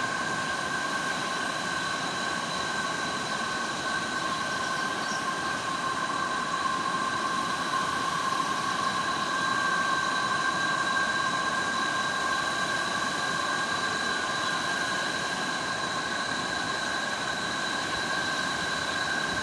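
Insect chorus: a continuous high-pitched drone at several steady pitches over an even background hiss.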